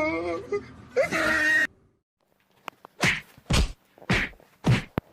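Four heavy thwacks about half a second apart, each a sharp hit with a short low thud behind it.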